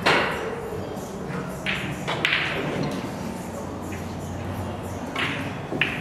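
Pool balls clacking and cue tips striking on nearby tables, sharp knocks that ring out in a large hall: one loud at the start, another about two seconds in, and a couple more near the end, over a low murmur of voices.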